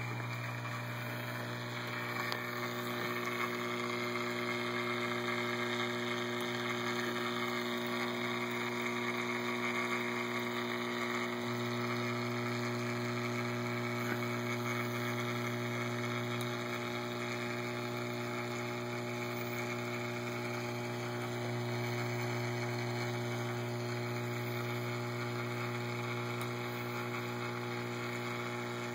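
Steady electrical hum of reef aquarium pumps: a low, even drone with overtones over a soft hiss.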